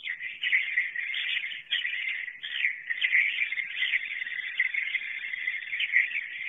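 Edible-nest swiftlets twittering in a dense, unbroken chatter of high chirps: the swiftlets' night-roosting call.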